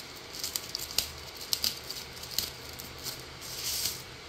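Thin protective wrapping crinkling and rustling as it is pulled down off a portable speaker, with scattered small clicks and a longer stretch of crinkling near the end.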